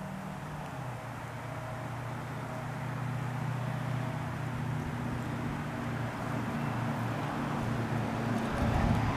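A motor's steady low hum, growing slowly louder, with low wind rumble on the microphone near the end.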